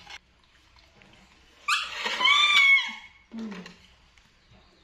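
A pet monkey gives one high call lasting a little over a second, about two seconds in, starting with a quick upward sweep and then arching gently down. A short low sound follows soon after.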